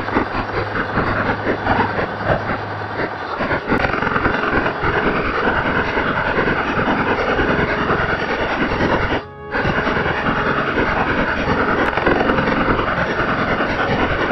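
Loud, dense background music laid over the footage, with a brief break about nine seconds in.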